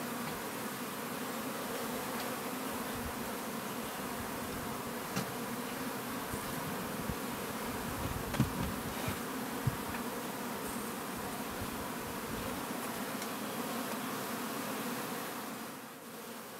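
Honey bees buzzing steadily around a hive, a continuous drone with a few faint taps about halfway through. The drone drops a little about a second before the end.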